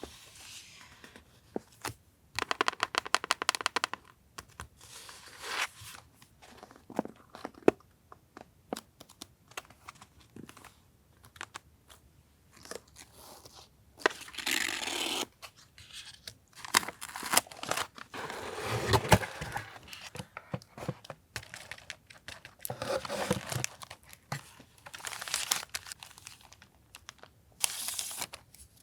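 Paper and packaging being handled: bursts of tearing and crinkling with scattered light taps and clicks between quiet pauses. A dense rapid rattle of tearing comes a few seconds in, and longer crinkling bursts come in the second half.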